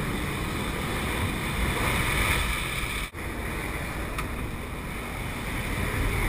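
Steady rush of wind and aircraft engine noise in a skydiving jump plane's cabin with the door open, buffeting the microphone; it breaks off for an instant about three seconds in.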